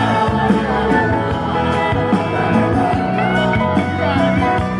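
Loud country-style music with singing and guitar, playing at a tailgate party.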